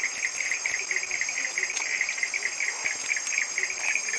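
Insects calling in forest vegetation: a fast, even, pulsing chirp, over a thin, high, steady whine.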